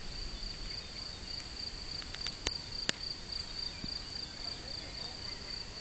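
Crickets trilling steadily on one high pitch, with a fast, even pulse. Two sharp clicks come about halfway through.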